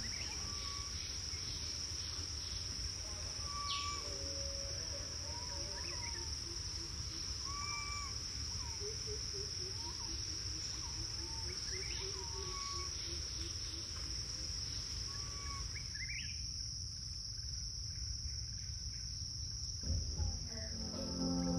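Steady, high-pitched insect trill, with short chirping calls every second or two over a low rumble. Music comes in near the end.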